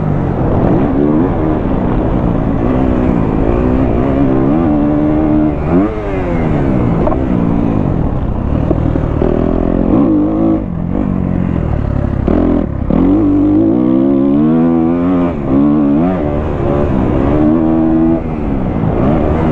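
2023 Kawasaki KX250F's single-cylinder four-stroke engine being ridden hard, its note climbing and falling again and again through throttle openings and gear changes. There are a couple of brief drops in the note midway where the throttle is shut.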